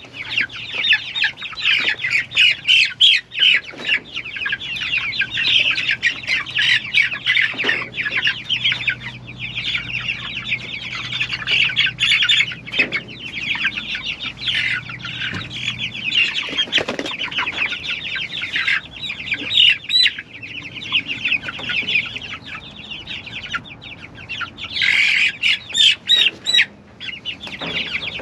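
A flock of young meat chickens peeping continuously, many short high calls overlapping, with bursts of louder cheeping near the end.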